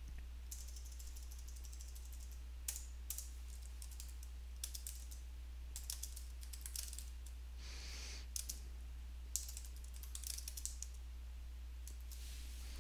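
Typing on a computer keyboard: irregular keystrokes in short bursts with pauses between them, over a steady low hum.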